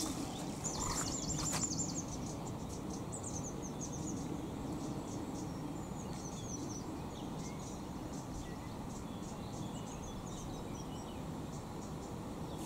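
Outdoor ambience: small birds chirping, with a fast high trill about a second in and scattered short calls after it, over a steady low background rumble.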